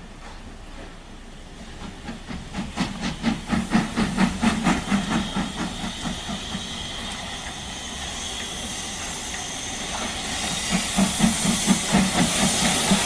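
Steam locomotive chuffing at about three puffs a second, starting about two seconds in and then fading, while a hiss of escaping steam grows louder. A second run of chuffs comes near the end.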